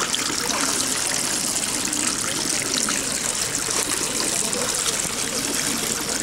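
Water running steadily into the drinking troughs of racing pigeon transport crates as the birds are watered.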